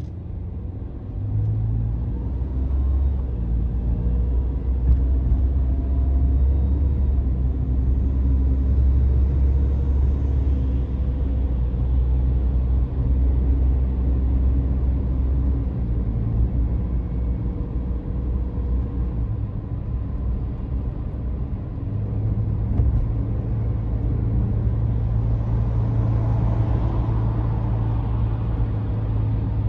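Car engine and road noise heard from inside the cabin while driving: a low, steady rumble that grows louder over the first few seconds, its engine note shifting pitch as the speed changes.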